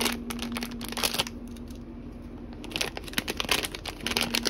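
Thin plastic blind-box bag crinkling as it is crumpled and handled. It comes in two spells, with a quieter gap of about a second and a half in the middle.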